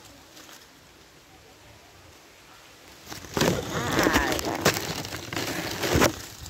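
Leaves and twigs rustling and crackling close to the microphone as the foliage is pushed through. It starts suddenly about three seconds in, with a few sharp snaps among the rustling.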